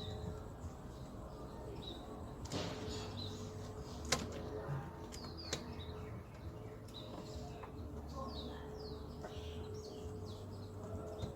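Birds chirping in the background, with a few sharp clicks and knocks from door parts being refitted; the loudest click comes about four seconds in.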